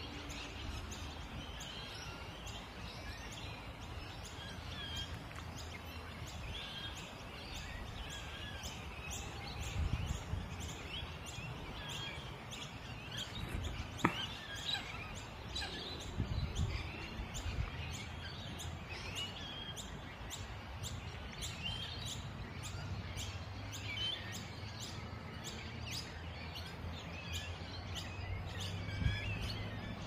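Many birds chirping and calling in the trees, with short, overlapping chirps and warbles throughout, over a steady low rumble. One sharp click about halfway through.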